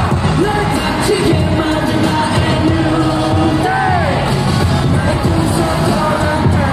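A K-pop dance track with singing, performed live and played loud over an arena PA, with the audience's voices mixed in.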